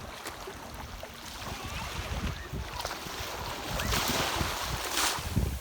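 Ocean surf: a wave swells and rushes in, loudest about four to five seconds in, with wind rumbling on the microphone.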